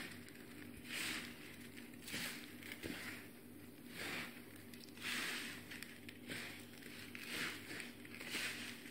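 Hands mixing cut lemon pieces with sugar, salt and chilli powder in a steel plate, in repeated strokes about once a second.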